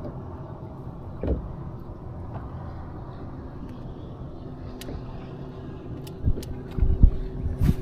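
A boat motor running with a steady hum, with a few low knocks near the end.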